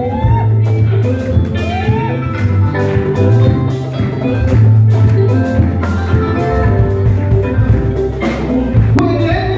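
Live West African band playing: hand drums and drum kit under electric guitars and a steady bass line, with a kora among the plucked strings.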